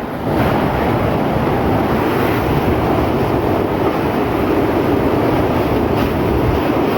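Strong storm wind rushing and buffeting the microphone in a loud, steady noise.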